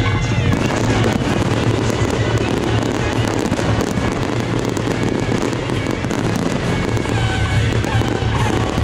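Fireworks crackling in a dense, rapid string of small reports, starting about half a second in and thinning near the end, over loud background music.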